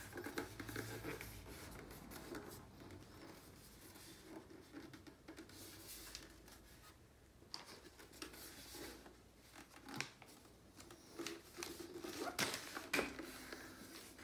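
Plastic wrapping crinkling and rustling as a Philips Norelco Auto Mignon car record player is handled and turned over, with a few sharp clicks and knocks from its casing near the end.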